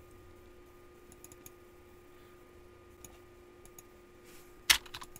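Scattered faint clicks of a computer mouse working a file dialog, with one louder, sharper click near the end, over a steady faint electrical hum.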